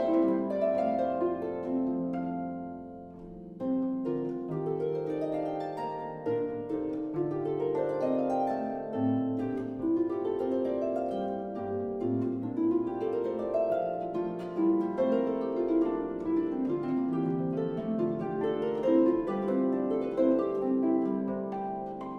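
Solo concert pedal harp playing a Renaissance dance, plucked notes ringing over lower bass notes. It eases off briefly about three seconds in, then carries on with repeated rising runs of notes.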